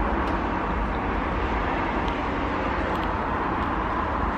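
Steady rumble of a moving vehicle, even in level throughout, with a few faint small clicks.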